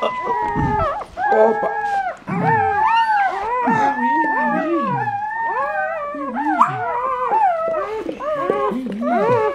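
Newborn puppies crying: several high-pitched squealing cries that rise and fall and overlap almost without pause.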